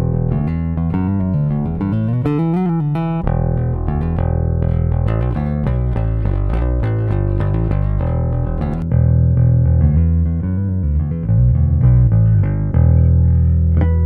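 Solo electric bass guitar played through an Aguilar DB 599 compressor pedal, switched between bypass and compressed sound: a run of plucked notes, louder notes from about nine seconds in, and a low note left ringing near the end.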